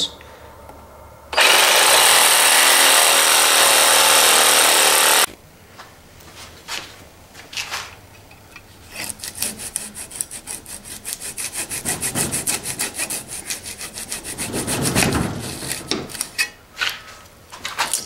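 A reciprocating saw (sawzall) runs for about four seconds, cutting into the secondary coil of a microwave oven transformer held in a vise, and stops suddenly. After a few knocks, a hacksaw saws through the coil with quick, rhythmic strokes for most of the rest of the time.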